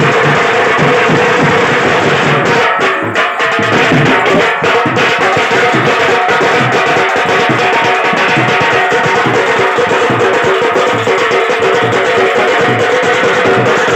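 Loud folk dance music played live on a stick-beaten drum, its beats repeating steadily under a held tone that runs throughout.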